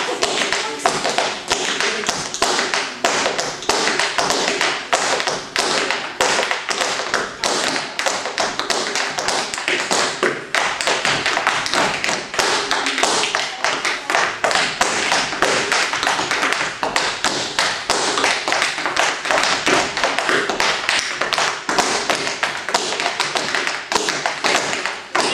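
Tap shoes striking a wooden tap board: a dense, continuous stream of rapid taps in changing rhythms, danced a cappella with no music.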